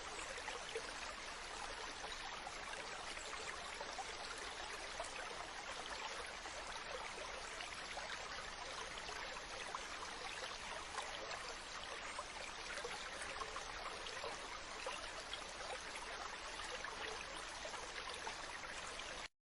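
Running water flowing steadily, a dense trickling and splashing like a small stream, cutting off abruptly near the end.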